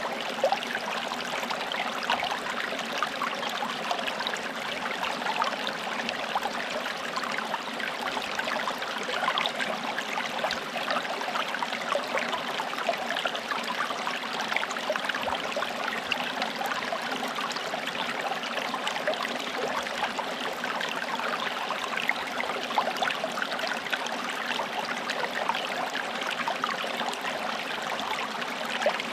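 Forest stream running steadily over stones, a continuous babble of small splashes and trickles.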